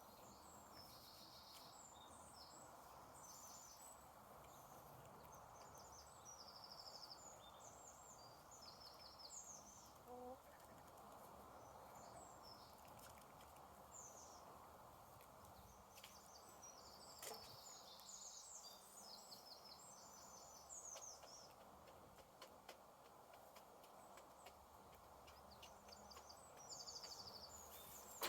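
Faint chirps and quick trilled note series from small wild birds, coming in clusters throughout, over a steady low background hiss.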